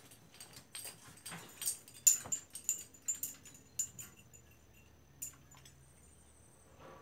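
A scatter of light, irregular clicks and taps, the loudest about two seconds in, thinning out after about four seconds with one last click a second later.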